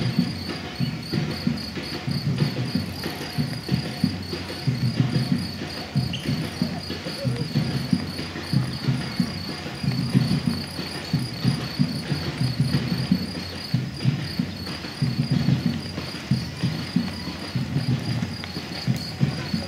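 Footfalls of many runners on a paved path, an uneven stream of soft steps, over a steady high insect chirping that repeats at an even rate.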